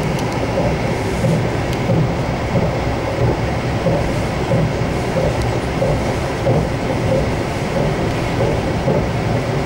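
Passenger train running along the track, heard from inside the carriage: a steady rumble of the wheels on the rails.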